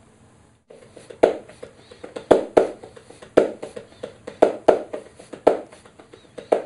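Sparse percussion strokes, about a dozen at an uneven pace, each ringing briefly, starting about a second in after a short hush.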